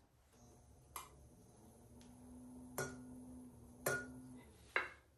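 Four light, sharp clinks about a second apart as a tungsten carbide trimming tool is handled against hard fired ceramic, with a faint steady hum through the middle.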